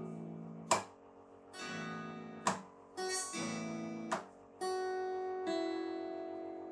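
Instrumental music: held, ringing chords that change every second or two, with three sharp clicks between them and no singing.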